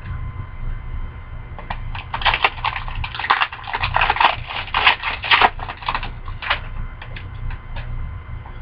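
Crinkling and rustling of hockey trading cards and pack wrappers being handled, a dense run of crackles that builds about two seconds in and dies away by about six and a half seconds, over a steady low hum.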